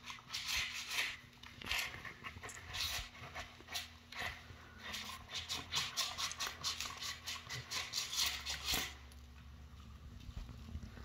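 Dog licking a plastic food tray clean: quick, wet tongue strokes several times a second, stopping about nine seconds in.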